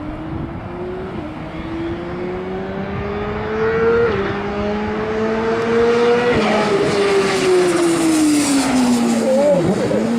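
Motorcycle engine accelerating hard through the gears, its note climbing and dropping back at each upshift about 1, 4 and 6 seconds in and growing louder. It then falls steadily in pitch, with a brief wavering near the end.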